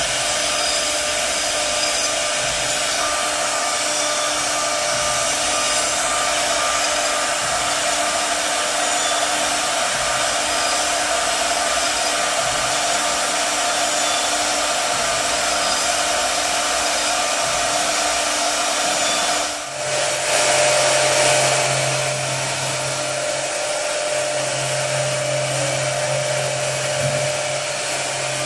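CNC router spindle running at high speed, its bit cutting into a turning wooden pillar blank held on the machine's rotary axis: a steady whine over a dense cutting noise. About two-thirds of the way through the sound changes abruptly and a lower hum comes in.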